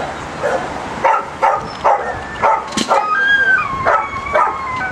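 A pug barking repeatedly in short, sharp yaps about every half second, with a higher drawn-out whine between the barks near the end.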